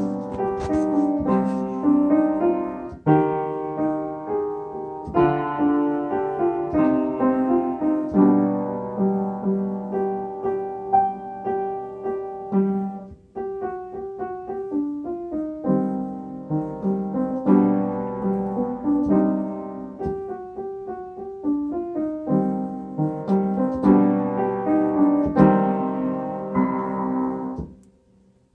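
Upright piano being played: a steady run of notes and chords, with a brief break about halfway through. It ends on a held chord that stops shortly before the end.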